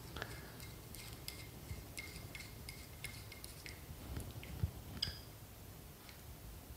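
Faint, scattered metallic ticks and clicks of a small screwdriver working the grub screw that holds the spring-loaded jet needle in an SU carburettor piston.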